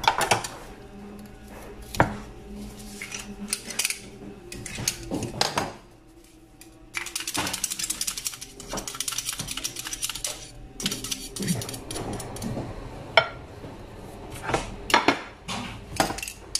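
Metal clicks and clinks of a stainless-steel garlic press being squeezed and handled over a ceramic plate, with a few seconds of rapid scraping about halfway through.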